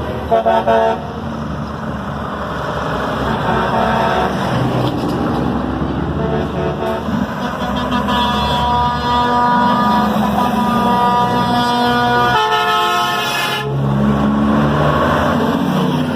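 Big diesel trucks driving past with engines running and horns blowing: a few short toots early on, then long air-horn blasts from about halfway.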